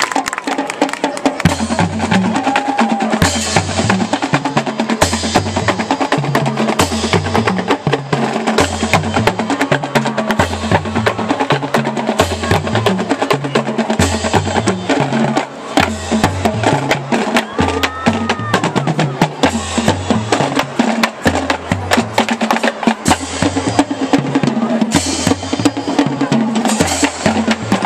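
Marching band drumline playing a marching cadence: rattling snare drums and rolls over a tuned bass drum figure that repeats about every two seconds.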